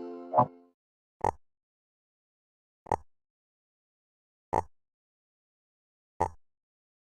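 The tail of a chiming music phrase fades out, then a short pop sound effect repeats five times at an even pace, about every second and a half, with silence between.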